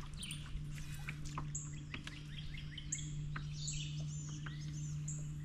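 Songbirds chirping and singing, many short quick calls overlapping one another. A steady low hum runs underneath.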